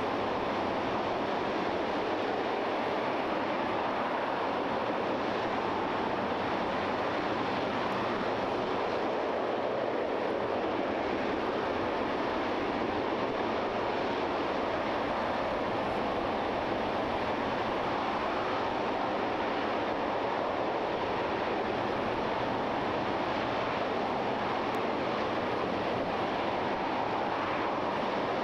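RS-25 liquid-hydrogen/liquid-oxygen rocket engine firing on a test stand: a steady, unbroken roar.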